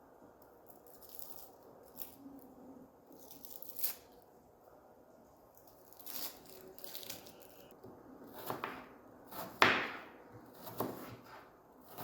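Scattered handling noises: soft rustling and a few sharp knocks, the loudest about ten seconds in.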